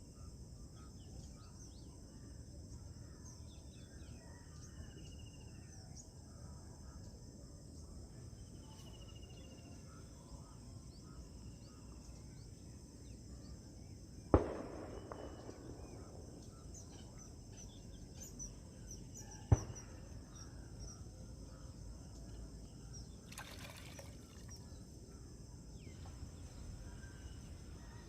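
Outdoor ambience: insects chirping steadily at a high pitch, with short bird chirps now and then. Two sharp knocks stand out, the louder one about halfway through and a second about five seconds later.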